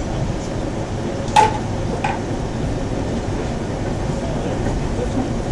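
Aeroexpress electric train running at speed, heard from inside the passenger car as a steady rumble. A sharp knock comes about one and a half seconds in, and a fainter one shortly after.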